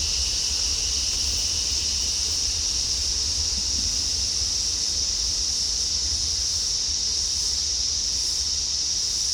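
Steady high-pitched drone of insects, unchanging throughout, over a low rumble.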